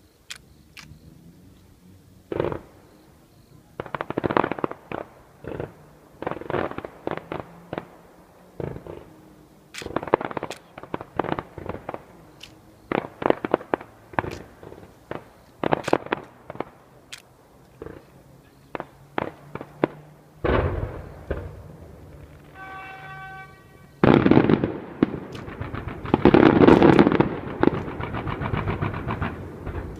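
Fireworks display: a string of aerial shells bursting with sharp bangs and crackle, one after another. About 24 seconds in it builds to a dense barrage of rapid bangs and crackling, with a short held pitched tone just before.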